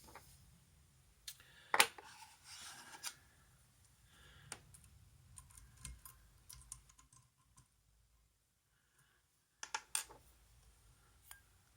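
Small metallic clicks and scrapes from a disc detainer padlock and its pick being handled, coming irregularly with a sharp click about 2 s in and a cluster of clicks near the end.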